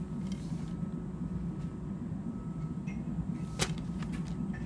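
Handling noise from a plastic DVD box set's case over a steady low room hum, with one sharp click about three and a half seconds in and a couple of faint ticks after it.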